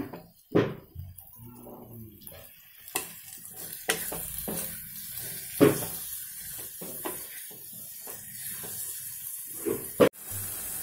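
Spatula stirring a capsicum masala curry in a metal kadai: irregular scrapes and knocks against the pan over a light sizzle of the frying vegetables.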